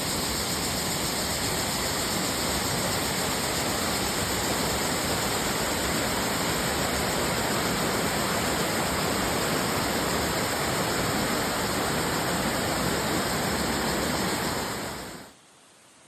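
Waterfall rushing: a steady, loud wash of falling water that fades out over about a second near the end.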